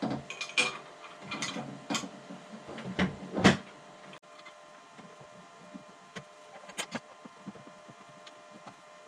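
Knocks and clatter of the snowblower's discharge chute and its bolts being handled and set in place, several sharp knocks in the first few seconds with the loudest near the middle, then a few light ticks.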